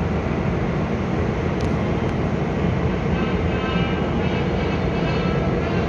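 Seoul Subway Line 1 train approaching through the tunnel toward the underground platform: a steady rumble, with a faint high whine coming in about three seconds in.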